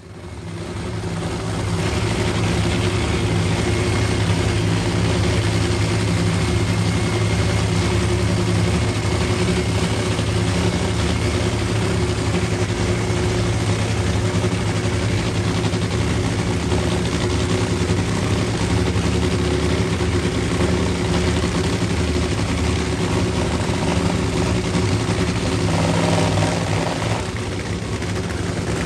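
Supercharged, nitromethane-burning V8 of a nitro funny car idling steadily while it is readied for a run.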